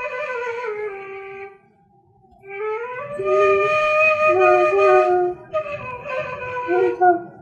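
Background music: a slow flute melody of long held notes, with a short pause about two seconds in.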